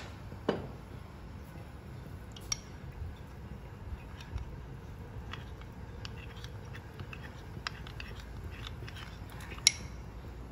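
A metal spoon clinking against a small ceramic bowl and a stainless steel wok: a few sharp clinks, one ringing briefly about half a second in and the loudest near the end. Faint scattered ticks from the gravy simmering in the wok sit underneath.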